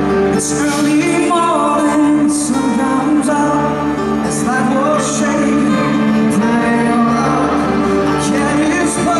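Live unplugged rock band with a string section playing, with male vocals sung over sustained chords and drums.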